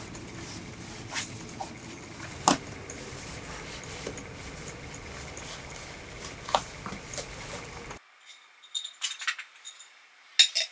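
Tent fabric door panel being rolled up and tied: soft fabric handling with a few sharp clicks over a steady hiss. About eight seconds in the hiss drops away, and a cluster of light jingling clicks follows near the end.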